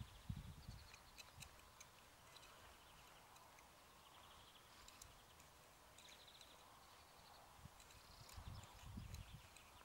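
Faint garden ambience: small birds trilling in short repeated phrases, with scattered light ticks. Soft low thumps at the start and again near the end as a small hand tool digs into loose soil.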